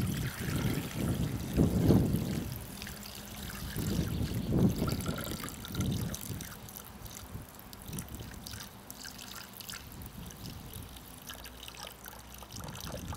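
Water poured in a thin stream from a glass jug into a Thermomix's stainless-steel mixing bowl, trickling steadily. A few low rumbles come in the first six seconds.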